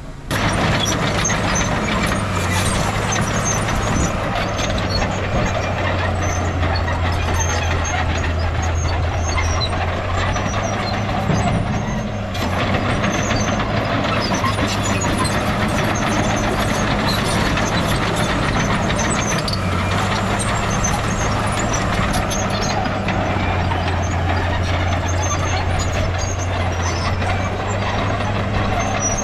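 Heavy diesel engine of earthmoving machinery (a bulldozer working soil with dump trucks) running steadily under load, its engine note shifting slightly a few times, with scattered metallic clatter.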